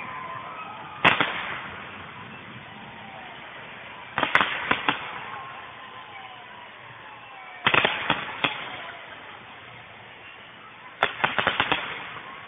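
Fireworks display: four volleys of sharp bangs about every three to four seconds, each a loud report followed by a quick cluster of smaller cracks, with a steady hiss between.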